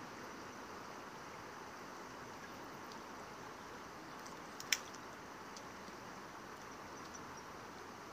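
Steady, faint hiss of a shallow river flowing over stones, with one sharp click about halfway through.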